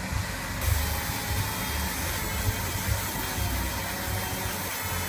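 Laser marking machine running while it engraves lettering into a pistol slide: a steady machine hum and hiss with uneven low pulsing.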